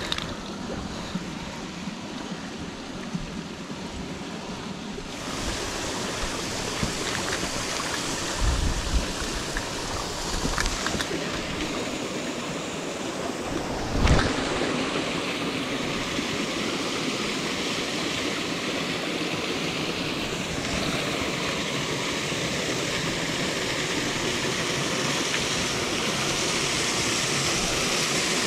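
Mountain stream rushing over rocks: a steady wash of water that gets louder about five seconds in and keeps swelling slowly, with a single knock about halfway through.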